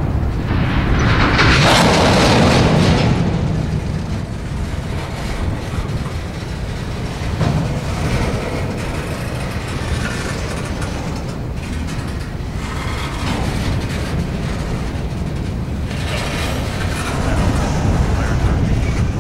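Freight cars, empty centerbeam flatcars among them, rolling past on the rails: a steady rumble of steel wheels with occasional clicks. A louder rushing swell comes about two seconds in, and the sound rises again near the end.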